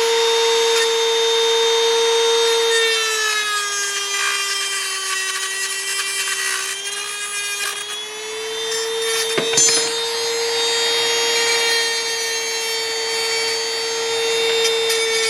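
High-speed rotary tool running steadily with a high whine, cutting through a metal stuffing tube; its pitch sags for several seconds as the wheel is pressed into the tube under load, then climbs back. A single sharp knock about halfway through.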